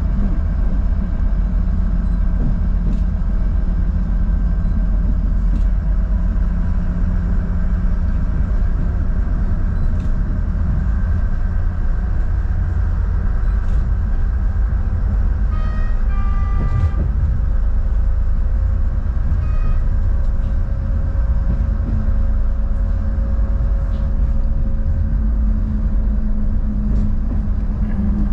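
Train running along the line, heard from on board as a steady low rumble with an engine drone; its horn sounds for about a second and a half roughly halfway through, followed by a short second toot a few seconds later.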